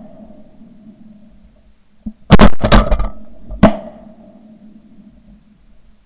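A volley of shotgun blasts, three in about a second and a half, each followed by a rolling echo.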